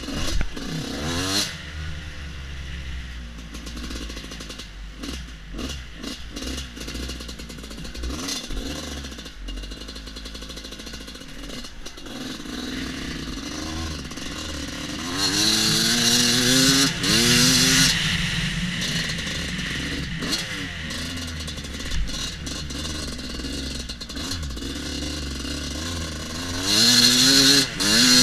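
Husqvarna WR250 two-stroke enduro motorcycle being ridden off-road. The engine revs up in rising sweeps about a second in, again around the middle and near the end, with the bike clattering between them as it runs at lower revs.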